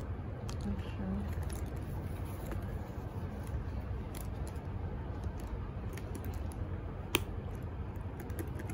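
Handling noise from a leather sling bag and its metal strap hardware: scattered light clicks and rattles, with one sharp click about seven seconds in, over a steady low hum.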